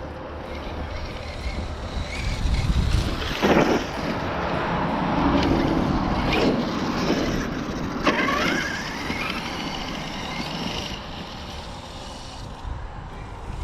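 Arrma Kraton EXB RC truck's brushless electric motor revving as it drives and jumps, with a rough rumble of tyres and wind. There are sharp knocks about three and a half seconds in and again about eight seconds in, the second followed by a rising whine as the truck speeds up.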